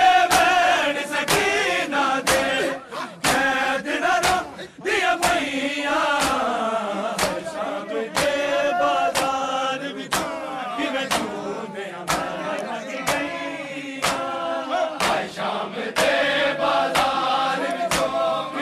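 Men chanting a noha, a Shia mourning lament, in chorus over regular sharp beats that keep time.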